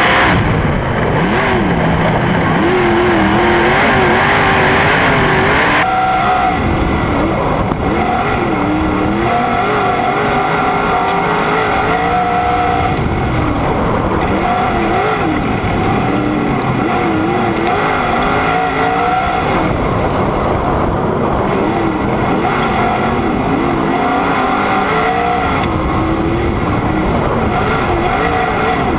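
Sprint car engine heard on board at racing speed on a dirt oval, its revs rising and falling in a repeating pattern as the car goes through the turns and down the straights. The tone changes abruptly about six seconds in.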